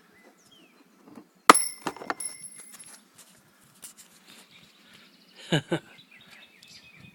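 A metal retaining clip snaps off the plastic evaporator housing with a sharp click and a short metallic ring, followed by a few lighter clicks as it is handled. Two brief squeaks come a few seconds later.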